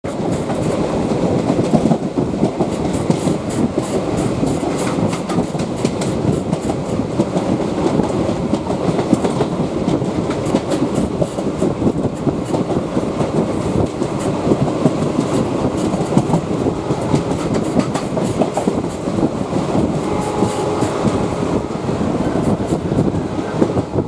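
Loud, close rumble and clickety-clack of a train overtaking a rake of BCNA covered freight wagons on the adjacent track, with rapid clicks of wheels over rail joints.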